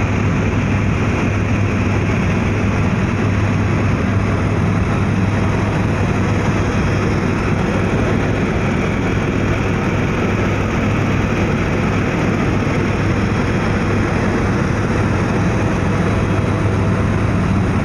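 Helicopter in cruising flight heard from inside the cabin: the engine and rotors make a loud, steady drone that holds an even level throughout.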